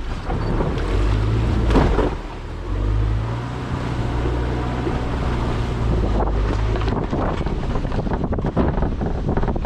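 Car engine and exhaust droning low and steady while driving, with tyre and wind noise buffeting the microphone. The engine note dips briefly about two seconds in and then picks up again.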